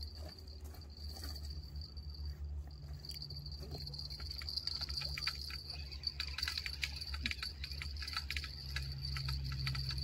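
Cicadas buzzing steadily in the bush, a high insect drone with many fine clicks that thicken in the second half, over a low steady rumble.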